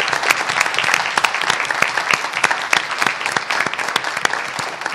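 Audience applauding: many people clapping in a dense, steady patter that eases slightly near the end.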